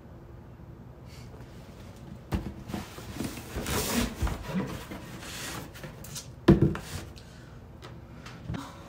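Cardboard subscription box being handled and set down: a knock, a few seconds of scraping and rubbing, then a loud thump about six and a half seconds in and a small knock near the end.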